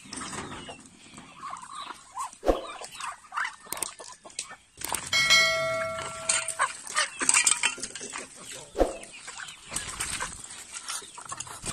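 Flock of Rhode Island Red chickens clucking as they are fed, with a couple of sharp knocks. About five seconds in, a ringing chime from a subscribe-button animation sounds over them for more than a second.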